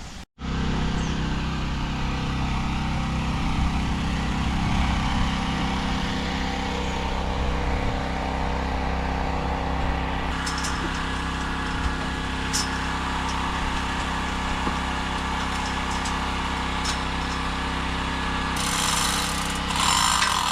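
An engine running steadily, with a few sharp ticks in the middle and a louder, rougher stretch near the end.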